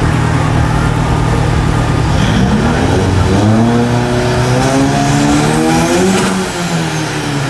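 Diesel drag-racing pickup's engine running loud, then revved in one long rising sweep for about three and a half seconds before the revs drop back, with a faint high whistle falling in pitch after the peak.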